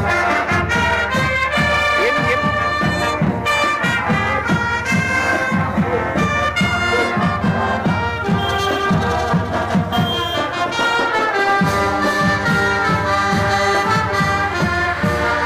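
Upbeat music led by brass instruments, such as trumpets and trombones, over a steady beat.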